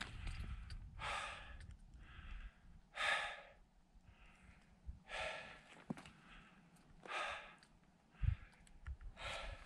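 A climber breathing hard, a loud out-breath about every two seconds with softer in-breaths between. Wind rumbles on the microphone for the first couple of seconds, and a low thump comes near the end.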